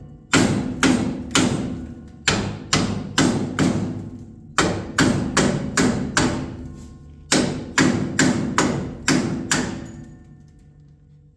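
Hammer blows on steel, about two a second in three runs with short pauses, each strike ringing briefly: knocking a stuck leaf-spring eye bolt out of its bushing.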